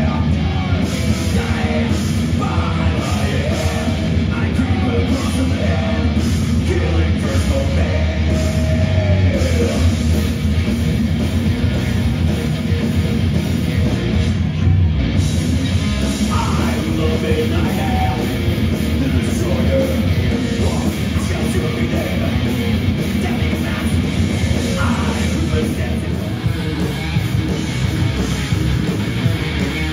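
Heavy metal band playing live at full volume, with distorted guitars, bass and drums, and sung vocals at times.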